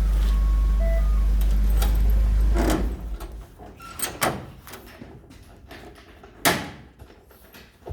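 Forklift engine running steadily, then cutting off abruptly about three seconds in; after it, a few sharp knocks and clicks, the loudest near the end.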